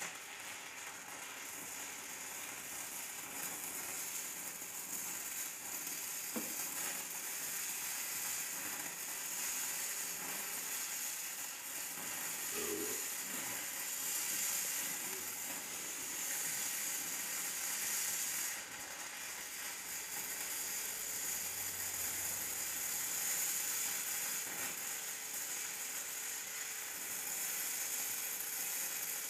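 Stick-welding arc of a 3/32-inch E6010 electrode burning at 80 amps DCEP on mill-scaled mild steel plate. It starts suddenly as the arc is struck and burns steadily, with a brief drop about two-thirds through. The arc is run somewhat long, judged by the welder's coach to want a shorter arc.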